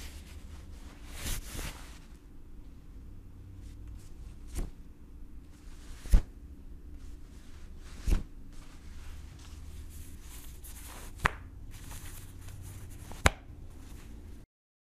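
Audio-drama sound effects: a low steady rumble with five sharp, separate thuds one to three seconds apart, the loudest about six seconds in and near the end, and brief rustling hiss before the first and before the last. It cuts off abruptly just before the end.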